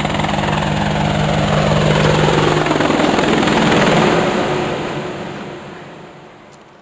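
A loud engine drone that swells to a peak about four seconds in, then fades away.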